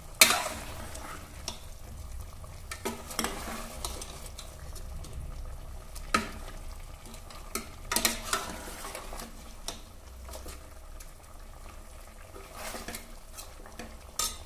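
Steel ladle stirring mutton pieces in an aluminium pressure cooker, with sharp clinks and scrapes of metal on the pot every second or few over a faint sizzle of frying masala. The loudest clink comes just after the start.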